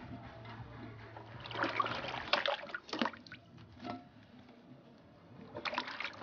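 Hands sloshing and rubbing peeled yam chunks in a plastic basin of water, with splashes and the pieces knocking together. The splashing is busiest about a second and a half in and picks up again near the end.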